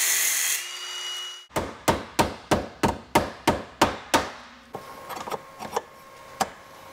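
A steady hiss dies away. Then a hammer strikes the sheet-steel transmission tunnel about three to four times a second for nearly three seconds, knocking the panel lower for clearance. A few lighter, spaced taps follow with a faint metallic ring.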